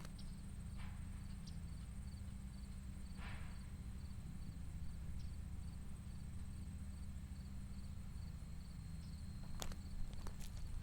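Insects chirping steadily in a fast, even pulse over a constant low wind rumble on the microphone, with a few footsteps, more of them near the end.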